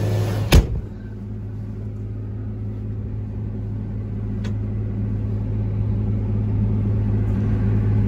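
New Holland CR9070 combine harvester running steadily, heard from inside its cab as a low, even hum. A single sharp clunk about half a second in.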